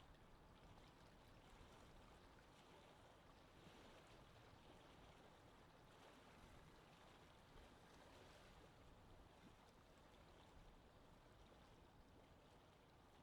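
Faint, steady lake wind ambience: an even wash of wind and water noise with no distinct events.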